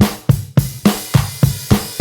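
Music with a steady, fast drum-kit beat of about three to four hits a second, bass drum and snare to the fore.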